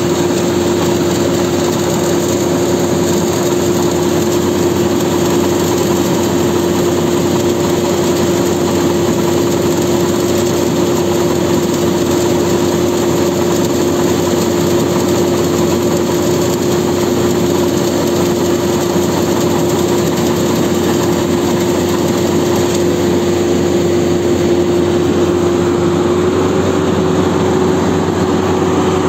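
Rice combine harvester running steadily while its unloading auger discharges paddy grain: a constant mechanical din with a steady whine on top that steps up slightly in pitch near the end.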